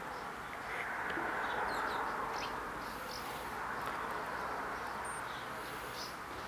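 Steady outdoor background hiss with scattered faint, short bird chirps.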